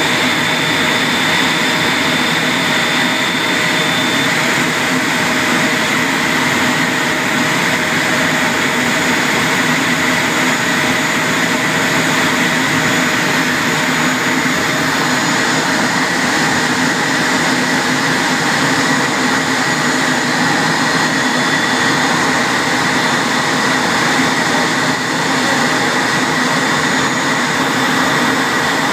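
Eurofighter Typhoon's twin EJ200 turbofans heard from inside the rear cockpit: a steady whine and rush at low taxi thrust as the jet rolls out and taxis after landing. A faint high tone in the whine stops about four seconds in.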